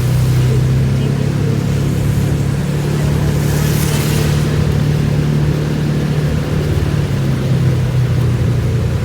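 A car driving through floodwater: a steady low engine and road rumble, with a brief rushing hiss about four seconds in.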